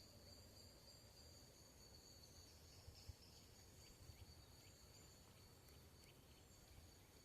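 Faint steady high-pitched insect trilling, two continuous tones, over a low rumble of forest ambience with a couple of soft thumps about three and four seconds in.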